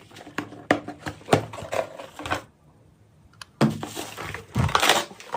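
Irregular hard plastic clicks and knocks from handling a portable Bluetooth speaker, with a second-long pause in the middle.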